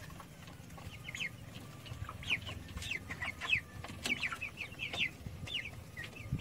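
A flock of young broiler chickens, nearly four weeks old, calling in short, high, falling peeps, several a second and overlapping.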